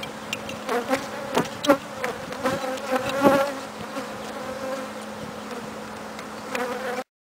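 A swarm of honeybees buzzing in a steady drone. A few sharp knocks and scrapes come in the first half, and the sound cuts off suddenly near the end.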